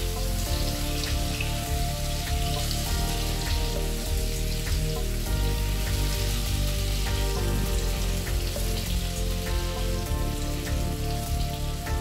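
Hot oil sizzling and crackling steadily as paneer cubes fry in a nonstick pan, over background music.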